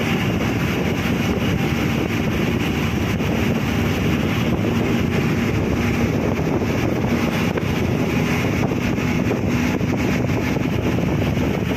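Steady wind rush from riding with the window open in a moving vehicle, over the even hum of its engine and tyres on the road.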